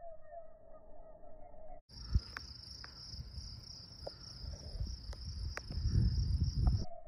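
Crickets chirping steadily in the dark. About two seconds in, the insect song abruptly jumps to a higher pitch, and near the end a low rumble swells up and then cuts off.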